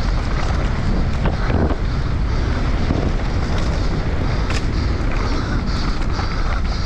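Wind buffeting the microphone while a mountain bike descends fast over a rough dirt trail, tyres rumbling on dirt and stones, with scattered sharp knocks and rattles from the bike over bumps.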